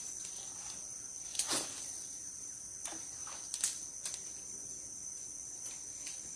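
Insects calling in a steady, shrill, high-pitched drone. A few short knocks or rustles cut through it, the loudest about one and a half seconds in.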